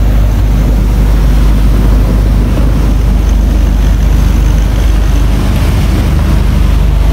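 Steady wind roar on the microphone aboard a moving motorboat, over the drone of the boat's engine and rushing water.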